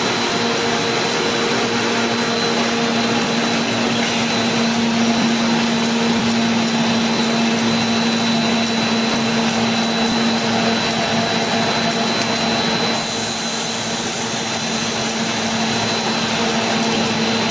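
Hot melt adhesive label coating machine running: a steady low hum and a thin high whine over even machine noise, dipping slightly in level about thirteen seconds in.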